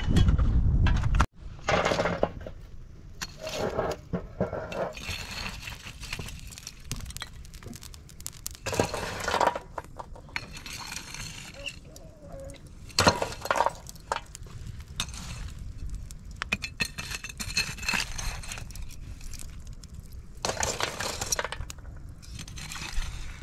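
A long metal tool scraping and clinking against burning embers and the mud hearth as live coals are raked out of a wood fire, in irregular bursts of sharp clinks and scrapes.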